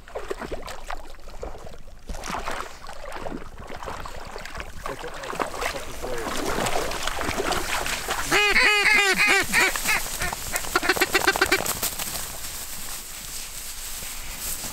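Duck quacking: a run of about six loud quacks a little past halfway, then a quicker run of shorter, fainter quacks.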